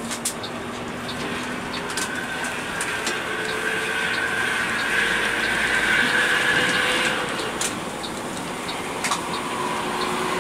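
Mercedes-Benz 1626 coach bus on the move, heard from inside the cabin: steady engine and road noise with scattered rattling clicks, and a high whine from about two seconds in that stops about seven seconds in.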